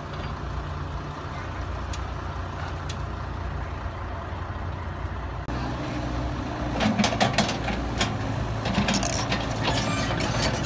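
Cat 313B tracked excavator's diesel engine running steadily as the machine works its boom. About halfway through the sound gets louder, and a series of sharp metallic clanks and knocks follows.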